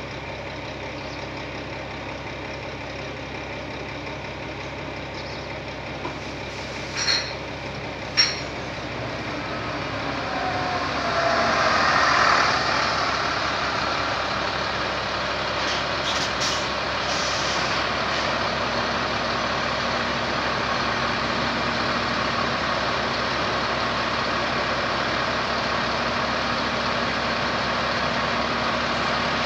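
Heavy diesel engine running steadily, with two sharp knocks about seven and eight seconds in. Around ten to thirteen seconds in, a hissing swell builds and fades, and after it the engine runs louder and steady.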